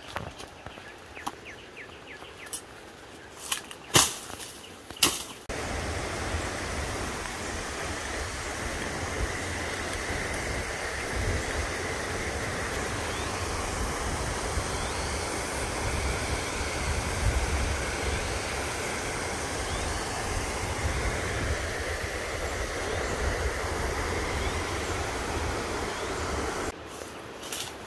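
Footsteps rustling through dry grass, with a few sharp snaps, for about five seconds. Then the steady rush of a rocky stream running over rapids takes over and carries on until near the end.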